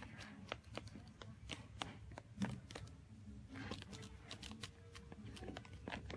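Faint, irregular clicks and rustling of handling: a hand scratching a cat's chin and brushing against its clear plastic cone collar.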